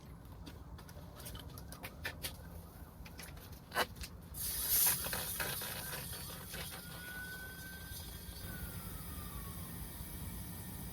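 A few clicks and a sharp knock as the air chuck is fitted to the tire's valve stem, then compressed air hissing steadily into the freshly plugged tire from about four seconds in.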